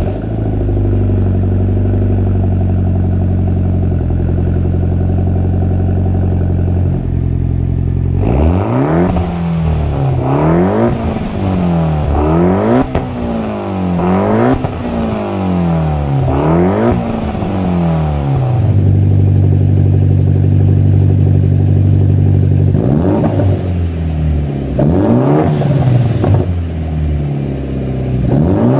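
Mitsubishi Lancer Evolution X's turbocharged 2.0-litre 4B11 inline-four exhaust idling steadily just after starting. About eight seconds in it is revved five times, one blip about every two seconds, then it settles back to idle. It is blipped a few more times near the end.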